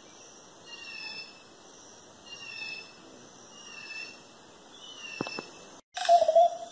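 Forest ambience: an animal repeating a short high call about once a second, five times, over faint steady background noise. Near the end the sound cuts out briefly and a louder, lower tone follows.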